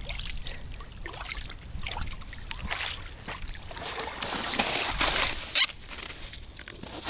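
Light water splashing and rustling as a hen-mallard decoy duck is handled at the water's edge, with one short sharp knock about five and a half seconds in.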